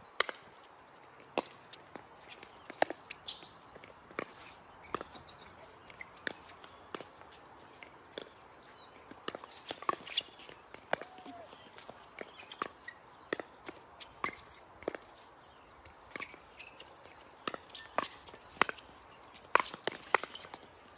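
Pickleball paddles striking a plastic pickleball in a long rally: a regular string of sharp pops about every 0.7 s, loudest near the end.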